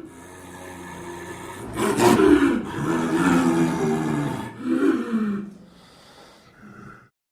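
Snow leopard calling: a loud, drawn-out call about two seconds in, then a shorter call near the five-second mark, fading to a faint tail that cuts off suddenly.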